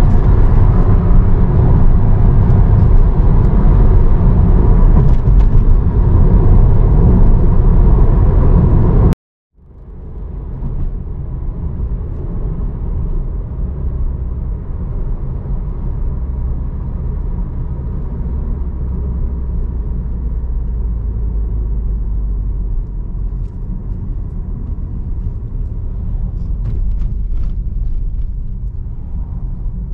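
Steady road and engine rumble inside a moving car's cabin. About nine seconds in it cuts off abruptly and comes back quieter.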